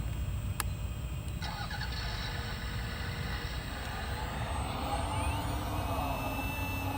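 1/14-scale RC hydraulic excavator's hydraulic pump coming on about a second and a half in, a mechanical whine that slides up and down in pitch as the hydraulics work, over a steady low rumble. A single click comes shortly before it.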